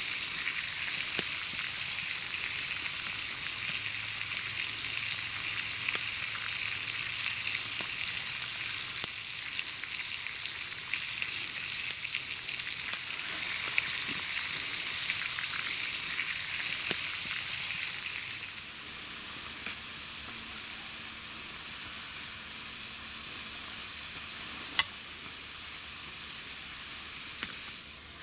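Whole trout sizzling in hot oil in a steel pan over a wood campfire: a steady frying hiss with an occasional sharp pop. The hiss becomes quieter about two-thirds of the way through.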